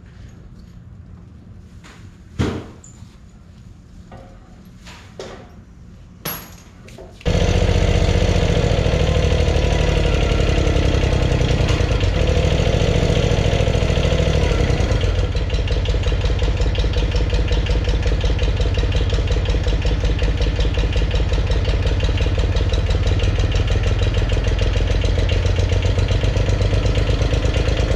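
A few light knocks of metal tools. Then, about seven seconds in, a motor starts abruptly and runs loud and steady with a fast, even pulse, its sound changing slightly about halfway through.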